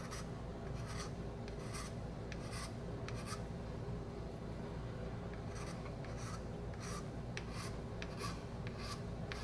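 Small hand file rasping in short back-and-forth strokes across the briar shank of a Dunhill pipe, about two to three strokes a second, with a pause of about two seconds midway. The strokes smooth out ridges in the shank.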